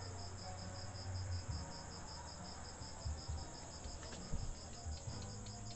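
A cricket chirping steadily, an even high-pitched pulse about five times a second, over a faint low hum.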